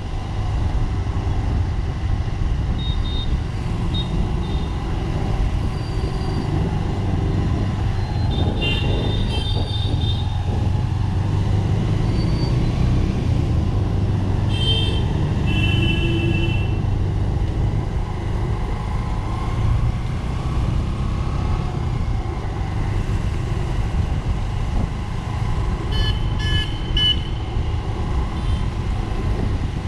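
Road traffic heard from a moving vehicle: a steady engine and road rumble, with vehicle horns tooting at intervals, including a quick run of short beeps near the end.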